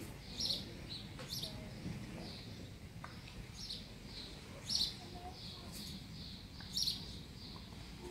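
A songbird calling repeatedly: short, high, bright chirps, four of them loud and spaced a second to two seconds apart, with softer notes in between, over a low background murmur.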